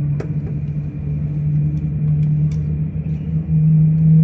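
Steady low hum of a taxiing Boeing 777's jet engines, muffled by terminal glass, swelling louder about three and a half seconds in. A few faint clicks sound over it.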